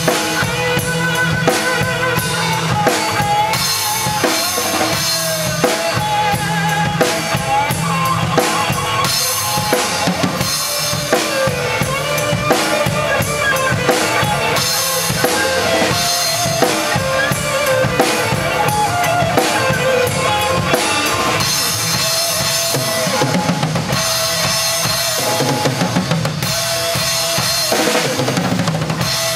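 Acoustic drum kit played live along to a recorded rock song: bass drum, snare and Meinl cymbals in an improvised part in the song's 7/8 and 4/4 rhythm, over the track's melody.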